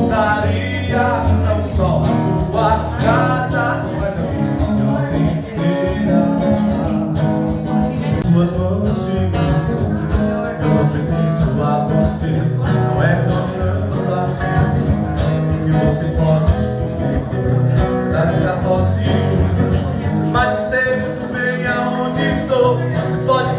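Live band music for dancing, with a steady beat, mostly instrumental between sung lines.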